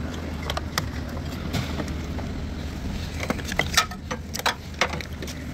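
Hard plastic clicks and knocks as a Hyundai Elantra headlight assembly is worked up and out of its mounts by hand. They are scattered at first, with a few sharper snaps from about three and a half seconds in, over a steady low hum.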